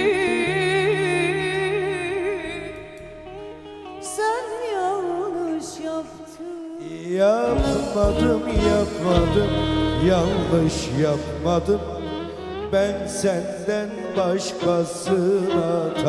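Turkish arabesk duet performance: a woman's long sung note with vibrato fades away, then an instrumental interlude follows, a single melodic line at first and, from about seven seconds in, the full band after a rising sweep.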